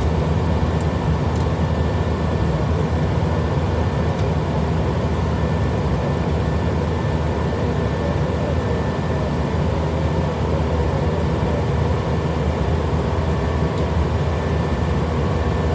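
Steady jet airliner cabin noise in the climb: a constant low engine and airflow rumble with a faint steady high hum, heard from inside the aircraft.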